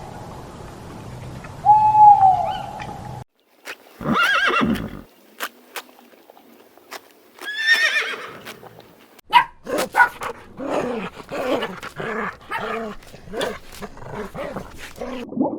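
A series of animal calls. It opens with a short, falling bird call repeated about every three seconds. After a cut, a horse whinnies twice, and the last few seconds hold a busy run of short calls with sharp clicks.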